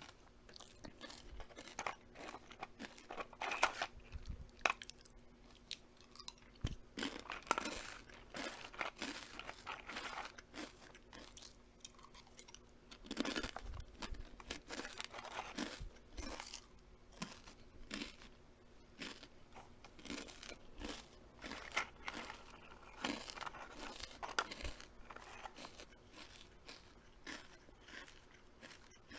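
Close-up crunching and chewing: something bites and chews crisp food in irregular, crackling bites.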